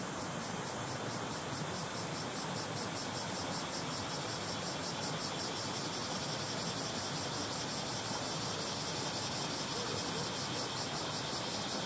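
A shallow stream flowing over stones with a steady rush of water. Cicadas are singing over it, a high, rapidly pulsing drone that grows stronger a couple of seconds in.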